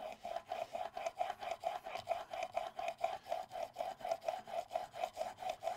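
Chisel bevel, held in a roller honing guide, rubbed rapidly back and forth on a coarse diamond sharpening plate: an even, rhythmic rasping at about five strokes a second.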